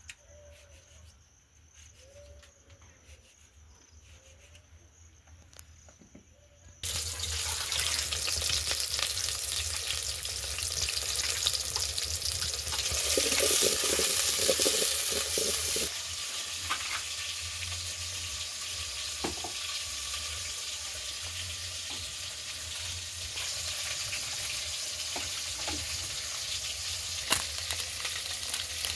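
Faint, steady high-pitched insect chirring, which about seven seconds in gives way suddenly to loud sizzling of food frying in hot oil, with occasional stirring scrapes and clinks.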